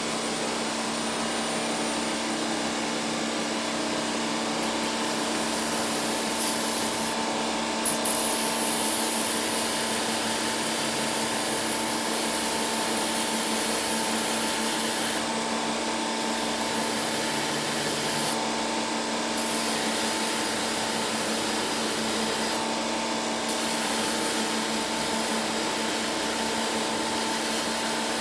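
Belt grinder running steadily, its belt rubbing on a workpiece held against the contact wheel: a constant motor hum under a grinding hiss. The hiss thins out for about a second a few times as the pressure on the belt changes.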